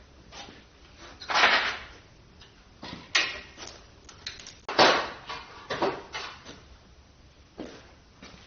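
Metal tools and engine parts being handled while tearing down a Ford 351 Windsor short block: a series of irregular clanks and short scrapes, the loudest about a second and a half in and again just under five seconds in.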